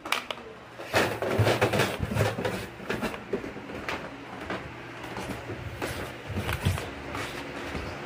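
A run of irregular knocks and clicks, like things being handled or moved, over a faint steady low hum.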